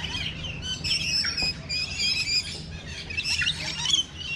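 A chorus of many birds chirping and squawking at once, a dense tangle of short high calls overlapping each other, over a low steady hum.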